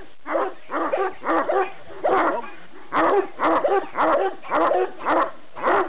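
Staffordshire bull terrier barking over and over, about two short barks a second.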